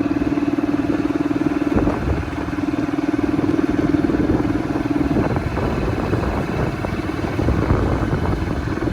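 Motorcycle engine running steadily, a fast even firing hum over heavy wind and road noise. The engine note eases back about halfway through.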